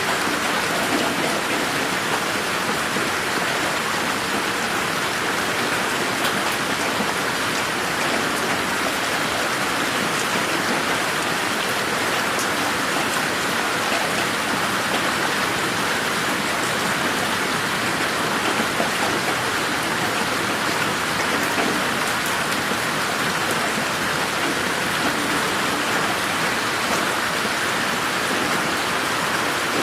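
Steady, even rain falling in a garden, a dense patter of fine drop ticks over a constant hiss, mixed in 8D so that it seems to move around the listener.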